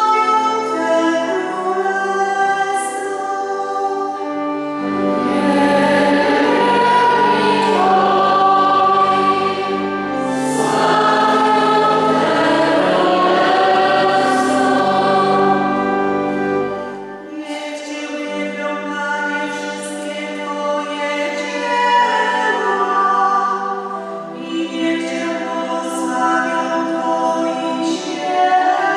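Voices singing a slow sacred song over sustained accompaniment. A deep bass line comes in about five seconds in and drops out around seventeen seconds.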